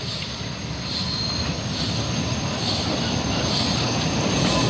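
BR Standard Class 4MT 4-6-0 steam locomotive No 75078 and its coaches approaching, the deep rumble of the train growing steadily louder as it nears. A soft regular beat comes about once a second over a steady high thin hiss.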